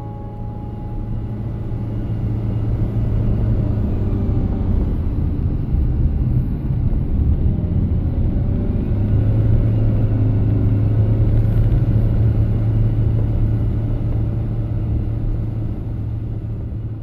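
Car's engine and tyre noise heard from inside the cabin as it drives a winding road: a steady low rumble that swells over the first few seconds and eases off near the end.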